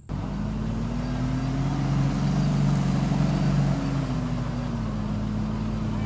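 Mega mud truck's engine running hard under load as it drives through a mud hole; the pitch climbs a little, drops about two-thirds of the way through, then holds steady.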